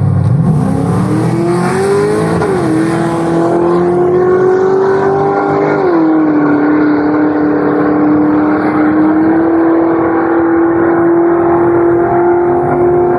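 Muscle car engine accelerating hard from a low idle, with its pitch climbing and then dropping as it shifts up twice, about two and a half seconds in and again about six seconds in. It then holds a steady, high drone.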